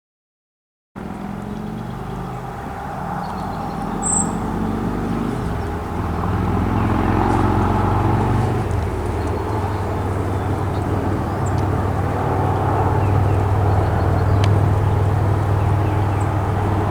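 A motor vehicle engine running steadily with a low hum, cutting in abruptly about a second in; its note shifts slightly about five seconds in.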